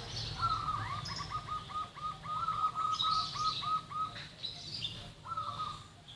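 Zebra dove (perkutut) cooing: a fast, even run of about a dozen short looped notes, about three a second, then a brief second phrase near the end. Higher, thinner chirps from another small bird come and go over it.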